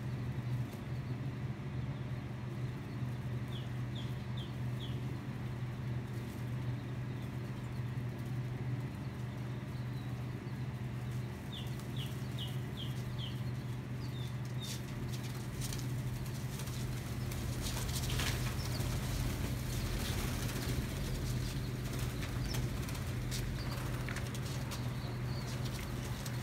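A flock of young quail on wood shavings: wings fluttering and feet scratching, busier in the second half, with two short runs of quick, falling chirps. A steady low hum runs underneath.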